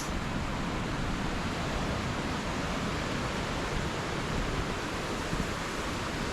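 Steady rushing background noise with no distinct sounds standing out of it.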